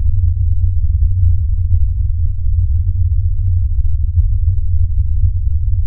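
A loud, steady, very deep bass drone with nothing higher in pitch, unchanging throughout.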